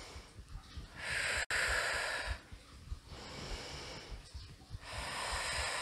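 A woman breathing audibly in and out, three long breaths paced with a kneeling exercise, the first the loudest. A single sharp click comes in the middle of the first breath.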